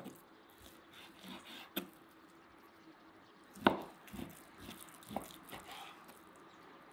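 Large kitchen knife slicing through raw beef on a wooden cutting board: soft, wet cutting sounds with a few sharp knocks of the blade on the board, the loudest a little past halfway.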